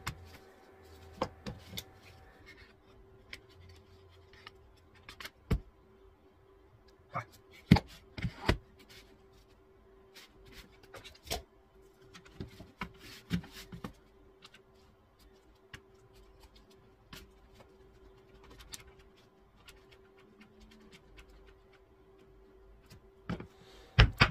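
Workbench handling sounds: a one-handed bar clamp released and slid off the work, and hardwood pieces knocked and set down on the bench. Scattered clicks and knocks, the sharpest about eight seconds in and a quick pair near the end, over a faint steady hum.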